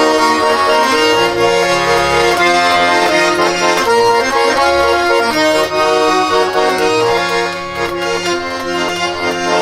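Accordion playing the instrumental introduction to a waltz, a melody over changing bass notes.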